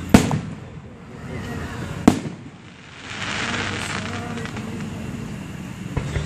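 Aerial fireworks bursting: two sharp bangs about two seconds apart, followed by about a second of crackling hiss.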